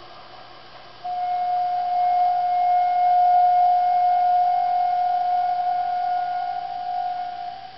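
A steady high-pitched tone comes in abruptly about a second in, holds at one pitch for about six seconds, then fades back to a fainter tone near the end.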